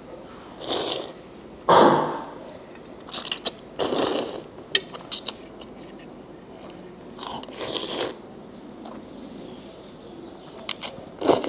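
A person eating hot instant noodles: several short slurps as the noodles are sucked off the fork, with chewing between them.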